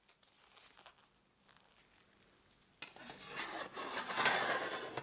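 Faint crinkling of plastic cling film being peeled off a metal loaf pan, then the metal lid of a Pullman loaf pan sliding along the pan's rim: a rough metal-on-metal scrape that starts about three seconds in, grows louder and stops as the lid closes.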